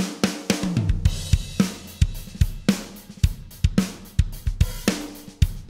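Sampled drum kit (Steven Slate SSD5) playing a steady rock beat of kick, snare and cymbals, run through a Wes Audio Dione VCA bus compressor with its THD saturation switched off.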